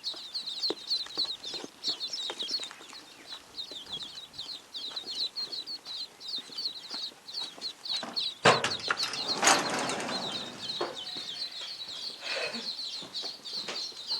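A brood of runner and golden Pekin ducklings peeping continuously, many rapid high peeps overlapping. About eight seconds in there is a sharp knock, then a second of rustling.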